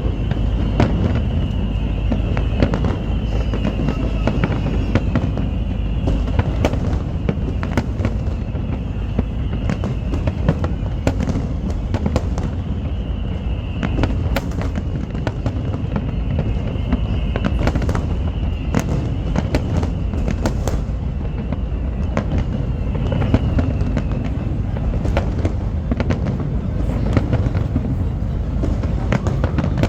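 Fireworks going off in a dense, continuous barrage: a steady low rumble of booms with sharp cracks and crackle throughout. A wavering high tone runs over it and stops a few seconds before the end.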